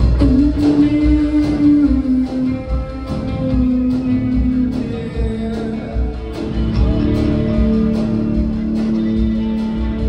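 New wave band playing live: drums keeping a steady beat under bass guitar and keyboard, with long held notes.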